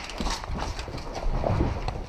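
A run of irregular knocks and thuds, spaced unevenly, with no steady rhythm.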